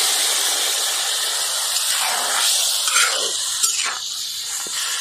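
Water added to okra frying in hot oil in an iron kadai: a loud sizzling hiss that fades gradually as the pan's contents settle toward a simmer.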